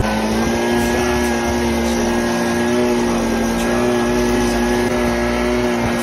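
Claas Dominator 108 SL Maxi combine harvester running at a steady speed, heard close beside the machine: an even hum with several held tones that do not change.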